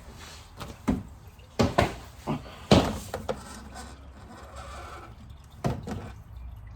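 Objects being handled: a series of irregular knocks and clunks, the loudest about three seconds in, as gear is picked up and moved around.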